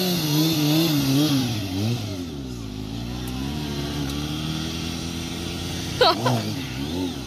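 Motorcycle engine revving up and down in short throttle blips while the rider holds a wheelie, steadier in the middle, with a brief, sharper rev about six seconds in.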